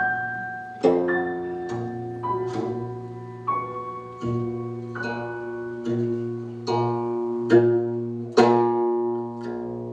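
Instrumental music: slow plucked or struck notes, one every half second to a second, each ringing out over a steady low drone.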